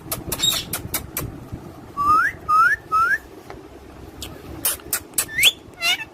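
A pet parrot whistling: three short rising whistles about half a second apart, then another rising whistle near the end. Sharp clicks come and go throughout.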